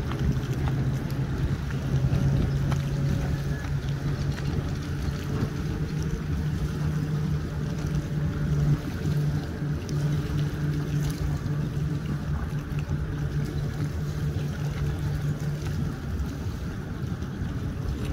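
Bass boat's outboard motor idling close by, a steady low hum that holds one pitch.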